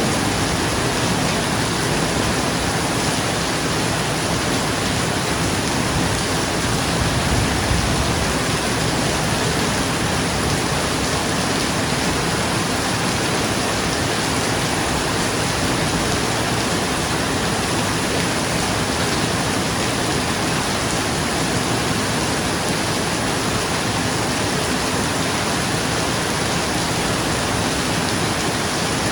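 Heavy rain falling on a roof, a steady dense hiss, with a brief low rumble of thunder about seven seconds in.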